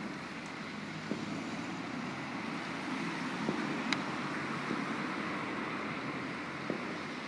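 Steady outdoor hiss with a few faint, sharp pops of distant fireworks; the clearest pop comes about four seconds in.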